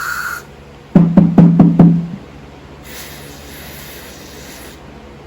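Aerosol electronic contact cleaner sprayed in a short hiss, then about five quick knocks from a part being tapped on a hard surface, then a longer, fainter spray hiss.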